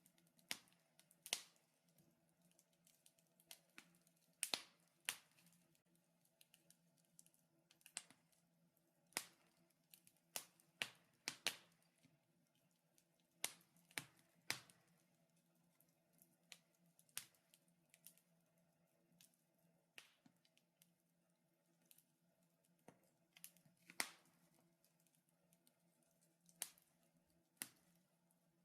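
Wood fire crackling in a fireplace: sharp, irregular pops and snaps from the burning logs, about one or two a second, over a faint steady hum.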